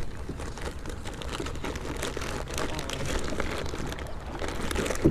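Faint rustling and handling noise with small scattered clicks over a low rumble.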